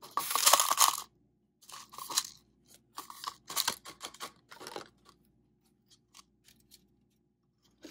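Gravel poured from a wire-mesh screen into a plastic cup: a gritty rattle lasting about a second, followed by several shorter rattles as the last pebbles are shaken and tapped out.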